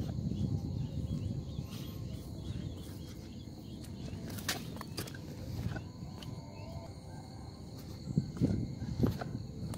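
Footsteps along a grassy earthen dike, with rustling from the handheld phone. A few sharper knocks come about halfway through and again near the end.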